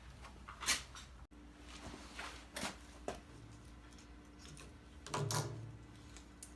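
Light handling sounds: a few small clicks and a short rustle, over a faint steady hum.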